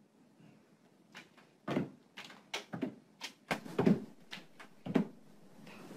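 A door knocking and rattling in its frame, about ten irregular bumps over four seconds.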